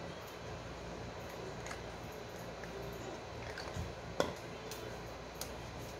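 Soft handling sounds of a sunscreen container and lotion being dispensed and rubbed onto the skin: a few faint clicks and taps, the loudest about four seconds in, over a steady low hum.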